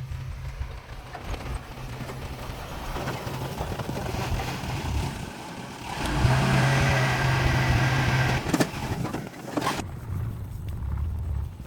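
Heavy construction machine's diesel engine running, rising to a louder rev about halfway through. Two sharp knocks come a little later.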